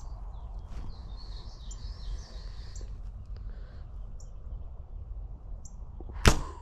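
Compound bow being shot: a single sharp crack of the string and limbs on release, near the end. Before it, small birds chirp faintly over a low steady rumble.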